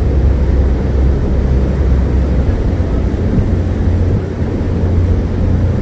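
Tour boat's engine running with a steady low drone, under a constant rushing noise of wind and water.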